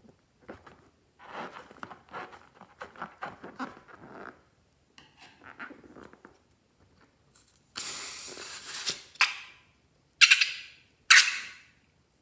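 Slime and balloons being handled: a run of soft squelches and crackles, then a loud hiss lasting over a second and two shorter loud hisses near the end.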